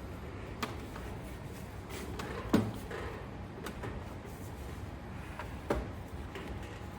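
A few wooden knocks and clunks as softwood table parts are handled and screwed together by hand, the loudest about two and a half seconds in.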